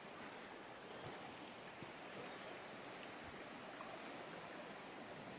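Faint, steady rush of the Ohanapecosh River flowing below the suspension bridge: an even wash of water noise.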